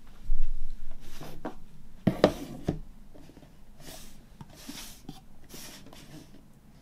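A cardboard box set handled on a wooden tabletop: a low thump just after the start, a few sharp knocks about two seconds in, then cardboard sliding and rubbing against the wood as the box is pushed into place.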